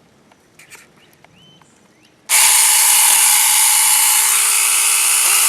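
Saker 4-inch 20-volt cordless mini chainsaw starting abruptly a little over two seconds in and running loud and steady as it cuts into a tree limb. A couple of faint clicks come before it.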